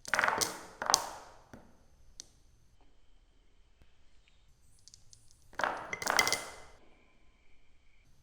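Marbles clattering and rolling along a marble run track in two bursts of hard knocks, one at the start and one a little past halfway, with faint high ringing tones held in between.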